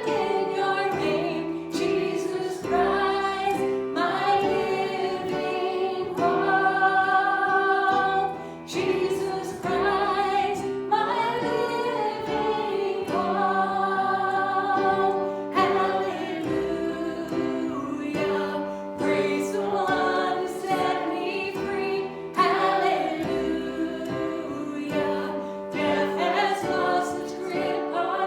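Church worship music: several voices, women's among them, singing a hymn together over steady instrumental accompaniment, with long held notes.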